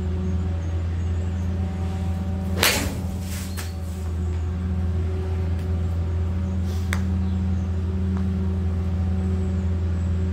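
A golf club strikes a ball once, sharply, about two and a half seconds in, over a steady low hum; a smaller click follows near seven seconds.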